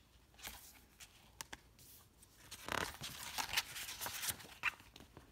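Faint rustling and crinkling of a paper picture-book page being turned by hand, with a few light clicks of the paper; the rustle is fullest about three to four seconds in.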